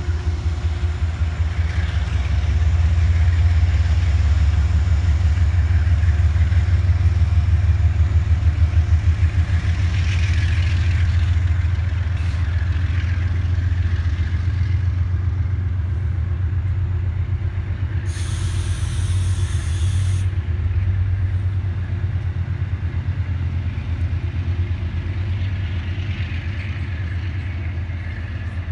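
Amtrak Empire Service passenger train running past the platform: a steady low rumble from the diesel locomotive and rolling coaches, loudest in the first third. A brief high hiss sounds about two-thirds of the way through.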